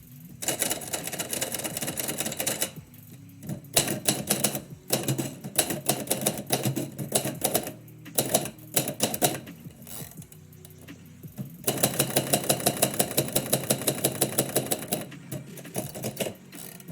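Typewriter being typed on in quick bursts of rapid key strikes, a few seconds each, with short pauses between them: a poem being written.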